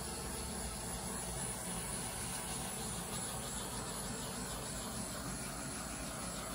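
Handheld butane torch burning with a steady hiss, passed over a freshly poured acrylic painting.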